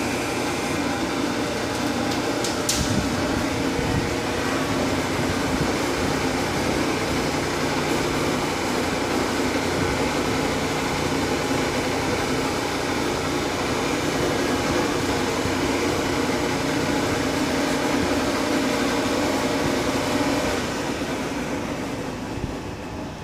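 Hydraulic hoist pump running steadily while a telescopic cylinder raises a dump trailer body. The sound fades away over the last couple of seconds.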